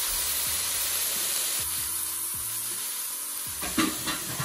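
Chopped onions, peppers, tomato and thyme sizzling in a large pot over medium heat, a steady hiss, with soft background music. A couple of light knocks near the end.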